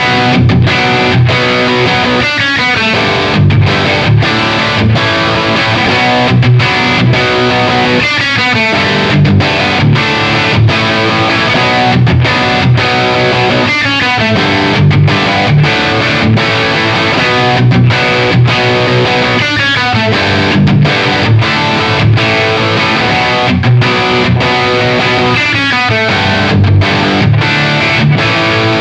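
Distorted electric guitar, a Gibson Les Paul with PAF-style humbuckers, playing a riff of picked chords and notes. A descending run comes back about every six seconds as the phrase repeats.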